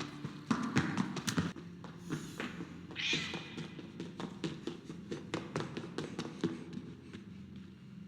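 A cat cries out once, loudly, about three seconds in, among a string of short sharp taps.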